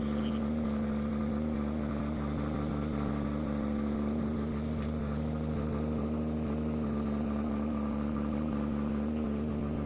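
A small wooden cargo boat's inboard engine running at a steady speed, heard from on board, a constant hum with an unchanging pitch.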